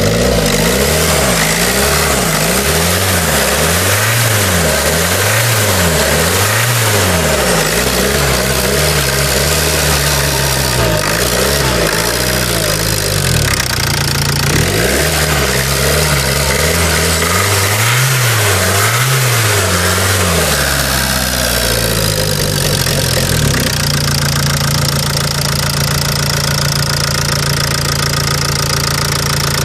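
Ford 1.8 TDCi four-cylinder turbodiesel engine (KKDA) running and being revved up and down over and over, about once a second, then settling to a steady idle for the last several seconds. It runs evenly, in good working order.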